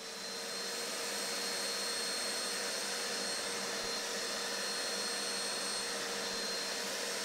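A carpet extractor's suction motor runs steadily while its handheld upholstery nozzle is drawn over car carpet. It makes an even whooshing hiss with a constant high whine, swelling in over the first second.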